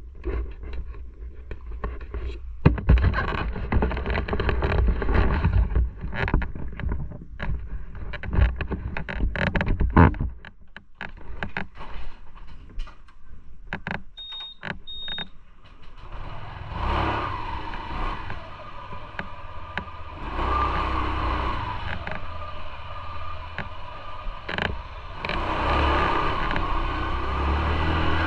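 Motorcycle riding in traffic: engine running with wind buffeting the microphone, easing off for a few seconds around the middle, where two short high beeps sound, then picking up again.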